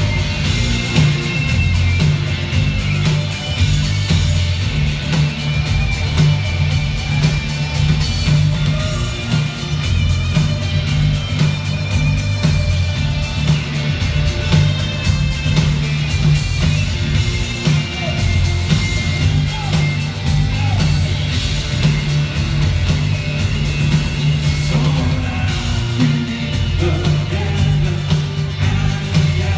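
Live rock band playing a song: drums, a strong pulsing bass line and electric guitars, with singing over it, recorded from the audience.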